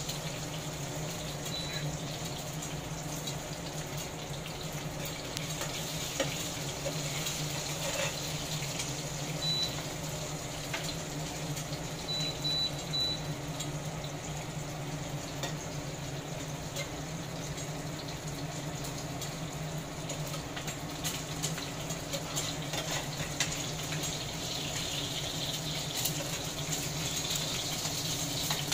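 Eggs frying in oil in a pan: a steady sizzle over the low hum of an induction cooktop, with light spatula clicks against the pan. Short high beeps from the cooktop's buttons sound once about a tenth of the way in, once near the middle, and three times in quick succession shortly after.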